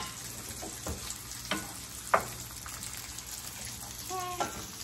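Steady sizzle of eggs and bacon frying, with a wooden spoon stirring eggs in a stainless steel pan and knocking against the pan three times. A short pitched sound comes near the end.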